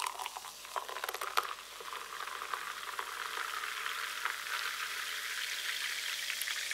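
Carbonated lemonade poured from a plastic bottle into a china cup. In the first second or so the stream splashes in with sharp ticks, then a steady fizzing hiss builds as the foam rises.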